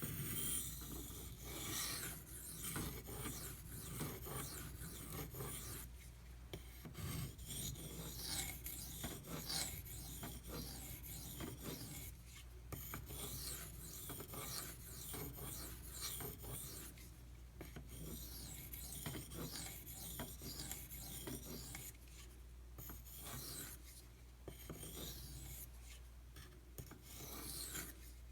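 Steel knife blade scraped back and forth across a sharpening stone, a rapid series of rasping strokes broken by a few short pauses.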